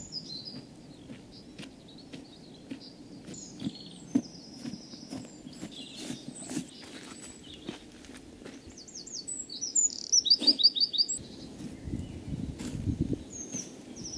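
Wild birds chirping and singing, with a fast run of repeated notes about ten seconds in, over a steady low background hum.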